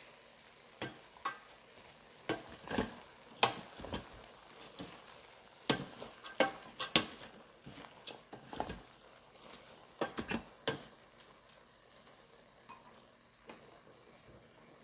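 Wooden spatula stirring fried rice in a stainless steel electric cooker pot, with irregular knocks and scrapes against the metal over a faint sizzle.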